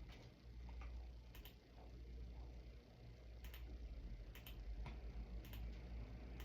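Sharp, short clicks at irregular intervals of about a second, over a steady low hum.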